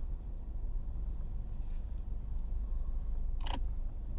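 Low, steady rumble of a car's engine and running gear heard from inside the cabin as the car rolls slowly, with a brief hiss about three and a half seconds in.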